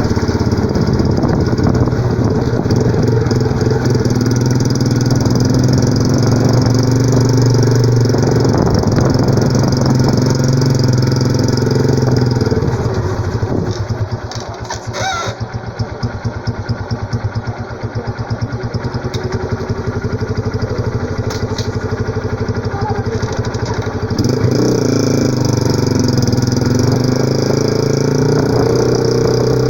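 Honda CG 125 Fan's single-cylinder four-stroke engine running through a Roncar Turbo aftermarket exhaust, with the air-filter intake hose removed. It is held at steady raised revs, settles to a pulsing idle a little before halfway, and is brought back up to raised revs for the last few seconds.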